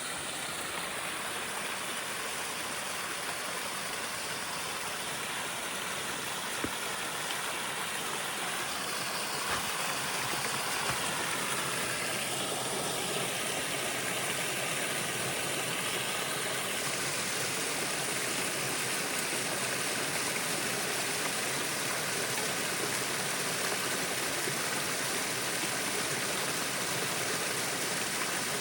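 Stream water flowing: a steady rushing that grows slightly louder.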